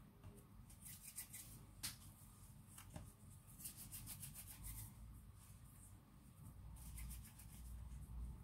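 Faint rubbing of hands rolling a small piece of soft bread dough between the palms, in three short runs of quick strokes, with one sharp tick about two seconds in.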